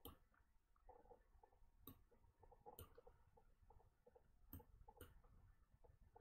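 Near silence broken by about five faint, sharp computer mouse clicks spread over six seconds.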